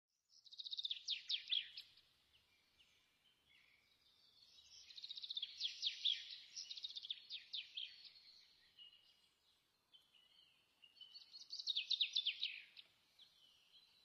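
A songbird singing fast trilled phrases of rapid chirps, in three bursts with short pauses between them.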